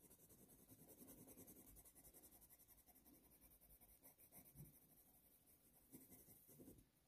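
Faint scratching of a Faber-Castell Polychromos colour pencil stroked over hot-press watercolour paper, laying down a pale base layer: a run of soft, rhythmic strokes in the first few seconds and a few more near the end.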